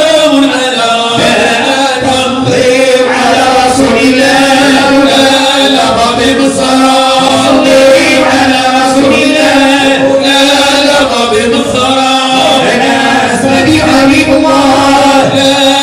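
A group of men chanting a Sufi devotional chant in praise of the Prophet (madih and dhikr), in unison and unaccompanied, over a steady held note.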